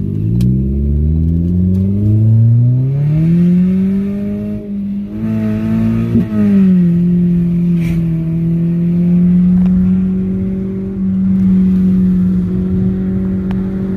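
2016 Ford Focus Titanium's four-cylinder engine through its modified exhaust, heard from inside the cabin. The engine note rises in pitch under acceleration for the first few seconds, drops sharply about six seconds in, then settles into a steady drone while cruising.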